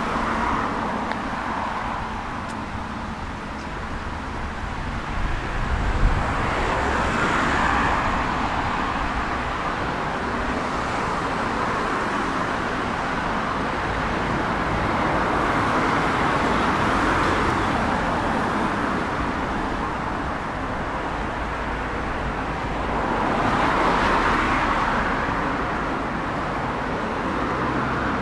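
Road traffic: a steady rush of cars with several passing one after another, each swelling and fading away. A short thump stands out about six seconds in.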